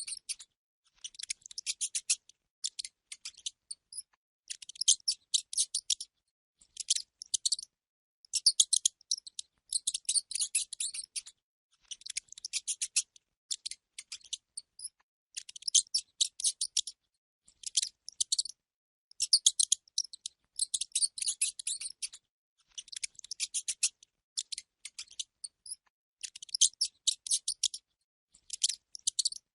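Rat squeaking and chittering in rapid high-pitched bursts of a second or two, repeated again and again with short pauses between.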